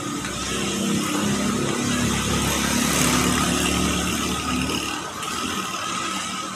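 A motor vehicle engine running close by, its pitch shifting as it swells and then fading after about five seconds, over a steady hiss.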